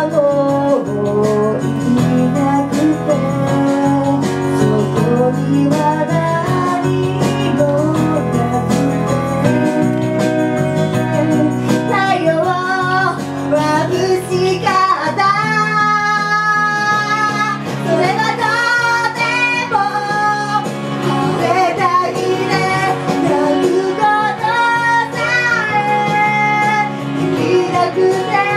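Female idol pop group singing a song live, with their voices carried over loud, full pop accompaniment.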